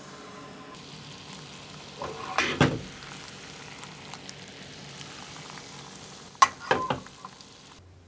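Sugar and water cooking into caramel in an enamel container, a steady sizzling bubble. Twice a short cluster of sharp knocks breaks in, the loudest sounds.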